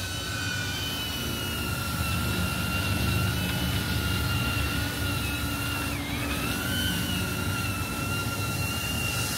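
DJI Avata FPV drone's ducted propellers whining steadily over a low rumble as it hovers and descends to land under automatic return-to-home. The pitch dips briefly about six seconds in and comes back up.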